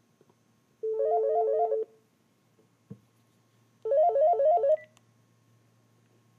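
Panasonic KX-TGM450S cordless phone's intercom ring: two short bursts of rapidly warbling electronic tones, about three seconds apart, paging the handset. A faint click falls between the bursts.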